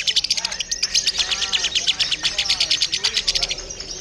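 Lovebird chattering in a long, rapid trill of high, sharp chirps, about ten a second, easing off near the end. Softer sweeping calls from other birds sound underneath.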